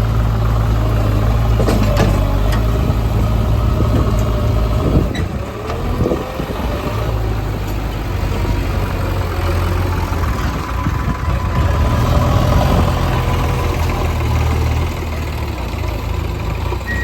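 Heavy diesel engine running, with a strong low hum and a few short knocks. The sound dips briefly about five seconds in and swells again a little after twelve seconds, as the engine's load changes.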